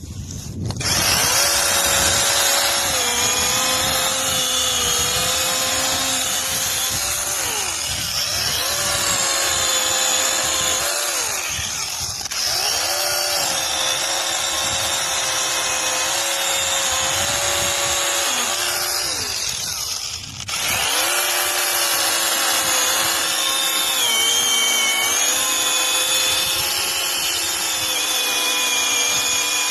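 Cordless brushless mini chainsaw running and cutting through branches: a high motor whine that sags in pitch each time the chain bites into the wood. It eases off briefly twice, about a third and about two-thirds of the way through, then speeds up again.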